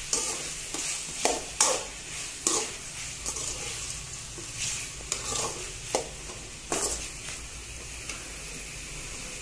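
Metal slotted ladle scraping and turning chicken and potato pieces in a steel kadai, in irregular strokes about once a second that stop about seven seconds in, over a steady sizzle of frying.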